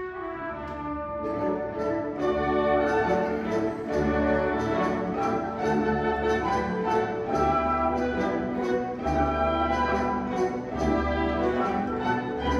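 An orchestra-type ensemble playing classical-style music, with brass to the fore over a steady low beat; the fuller playing comes in about a second in.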